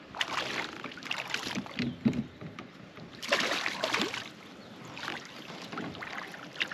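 Hooked white bass splashing at the surface beside a kayak in several bursts as it is reeled in, with the fishing reel being cranked.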